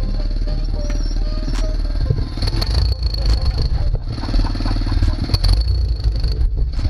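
Phatmoto motorized bicycle's small engine running while riding, its note steady with two short drops, about four seconds in and near the end, as the throttle eases off.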